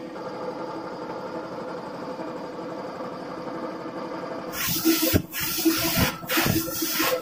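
Belt-driven piston air compressor running steadily. About four and a half seconds in, a compressed-air paint spray gun lets off three short, loud hissing bursts with brief gaps between them.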